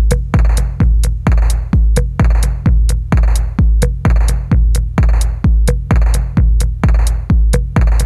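Background electronic music with a steady drum-machine beat: a heavy kick drum about twice a second with snappier hits in between.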